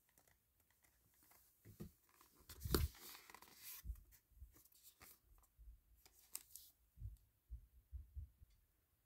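Cardboard retail box being handled and turned over in the hands: faint, scattered rustles, rubs and light taps, with one louder knock and scrape a bit under three seconds in.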